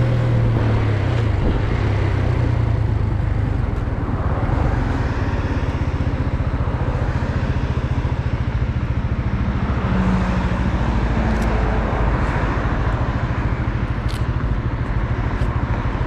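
Benelli Leoncino 125's single-cylinder four-stroke engine running steadily, with a continuous rushing noise behind it; the engine note eases down slightly in the first couple of seconds and then holds even.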